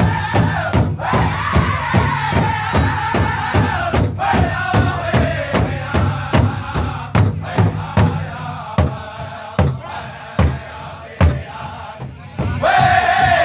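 Four powwow drum groups singing and drumming as one: a steady beat of about three strikes a second on the big drums under a loud, falling group chant. About two-thirds of the way through, the singing drops away and the drumming thins to a few widely spaced strikes. Near the end the singing comes back in loudly on a high pitch.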